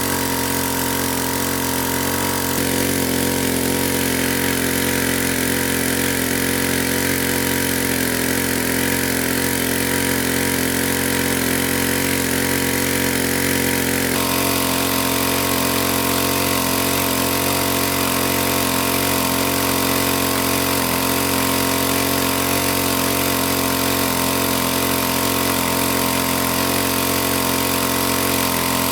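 A small engine running steadily at a constant speed, with slight shifts in its tone about two seconds in and about halfway through.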